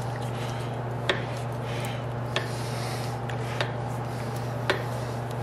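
Spot-welded sheet-metal test strip being bent back and forth in a bench vise with locking pliers to break the weld, giving four sharp metallic clicks roughly a second apart over a steady low hum.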